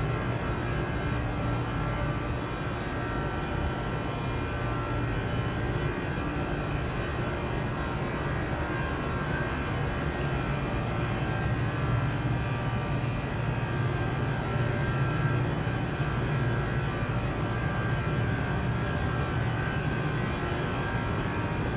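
Steady low machinery hum of a large factory building, a constant drone with several steady tones above it that does not change.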